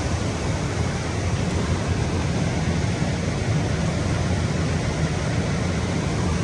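Waterfall rushing steadily, an even noise of falling water with a strong low rumble.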